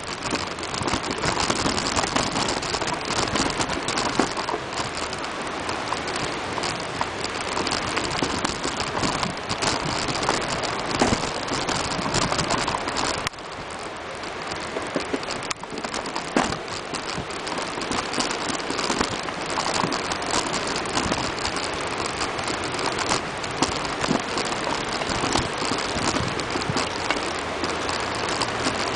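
Steady rushing, crackling noise of a bicycle rolling over a dirt and leaf-covered path, its tyres and frame rattling, mixed with the rush of a river running high in flood. It drops briefly about a third of the way in.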